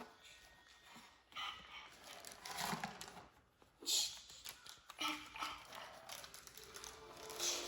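Crinkling and tearing of a Funko Mystery Minis blind box's cardboard and foil-bag packaging as it is opened, in short irregular bursts, the loudest about four seconds in.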